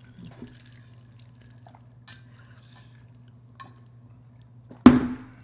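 Soft wet chewing and lip-smacking of seafood boil at close range, with small scattered clicks, over a steady low hum. Near the end, one loud sudden burst cuts in and fades within about half a second.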